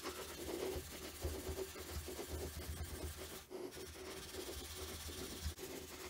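Coarse steel wool rubbed dry over a bronze-filled PLA (Bronzefill) 3D print, a continuous scratchy rubbing as it polishes the sanded surface.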